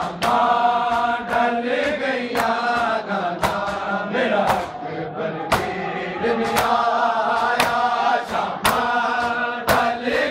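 Men in a crowd beating their chests in unison (matam), a loud slap about once a second, over a group of male voices chanting a noha chorus.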